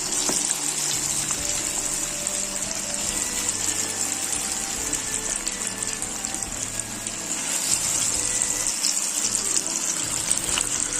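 Marinated chicken pieces deep-frying in hot oil in a nonstick pan: a steady sizzle with fine crackling, growing a little louder about eight seconds in.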